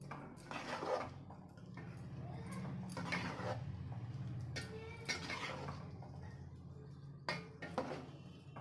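Metal ladle stirring thick rice-and-jaggery pudding in a steel pot, with scattered scrapes and clinks of the ladle against the pot. A steady low hum runs underneath.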